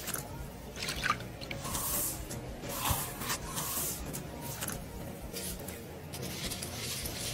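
Close-up sounds of liquid pouring and dripping into a small glass bowl, with soft wet squishing in between.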